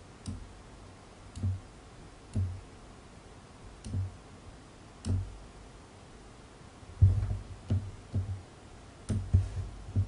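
Fingertip taps and knocks on a Samsung Galaxy Note held over a table: soft, short thumps with a faint click, about one a second, then a quicker run of louder knocks from about seven seconds in.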